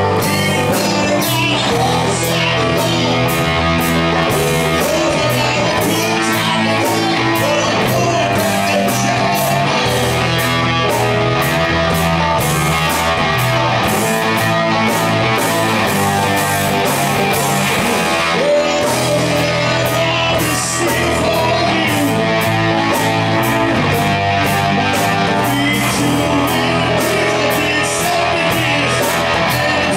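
Live rock band playing: electric and acoustic guitars over a drum kit keeping a steady beat, with a male lead vocal.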